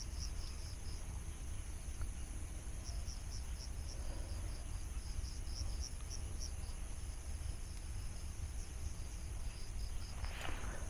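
Crickets chirping: a steady high trill with short chirps repeating over it, above a low steady rumble. A brief rustle comes near the end.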